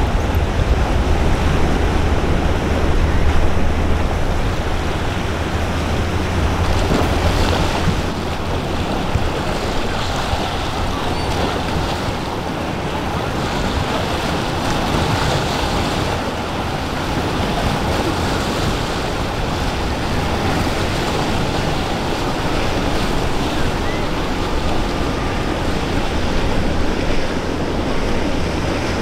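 Continuous wash of waves and surf mixed with wind buffeting the microphone. A deep low rumble is strongest for the first several seconds, then eases.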